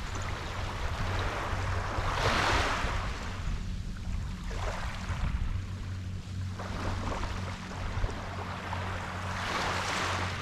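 Sea waves washing onto a beach, each swelling and falling away, with the biggest surges about two and a half seconds in and near the end, and smaller washes between. A steady low rumble runs beneath.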